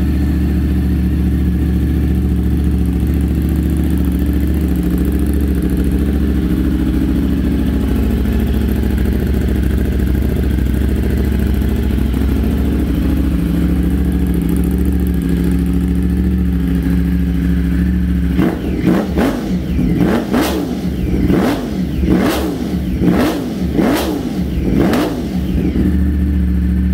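2020 Ducati Streetfighter V4 S's 1103 cc V4 engine, breathing through an Arrow aftermarket exhaust, idling steadily just after a cold start. About two-thirds of the way in it is revved in a string of quick throttle blips, each rising and falling sharply, then settles back to idle near the end.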